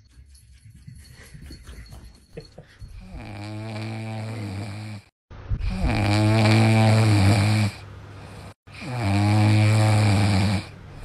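French bulldog puppy snoring in its sleep: three long, loud snores, each about two seconds, the first softer than the other two.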